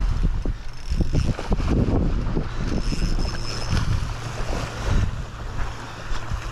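Wind buffeting the microphone in uneven gusts, over small waves washing up on a sandy beach.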